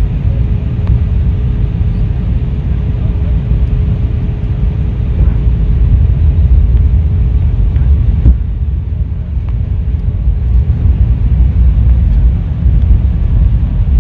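Airliner cabin noise on the descent: the steady low rumble of the jet engines and airflow heard inside the cabin, with a faint steady hum that stops about three-quarters of the way through.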